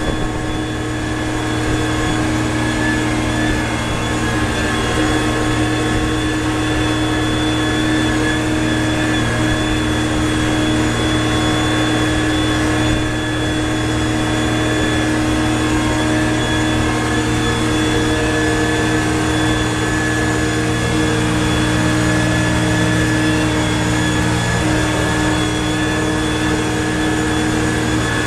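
Front-end loader's engine running steadily as the machine drives along, heard from inside its cab: a constant drone with several steady tones over it.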